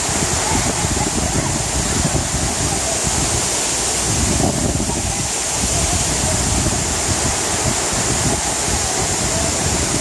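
Waterfall pouring into a rocky pool, a steady rushing of water.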